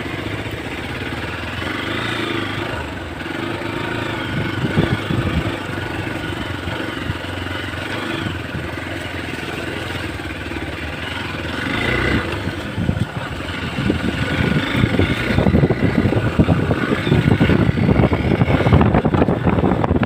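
Hero XPulse 200's single-cylinder engine running, getting louder and rougher in the second half as the bike is ridden harder.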